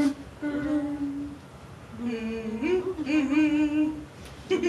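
A voice humming a tune in long held notes, two phrases with a short break between them. A sharp click sounds at the very start.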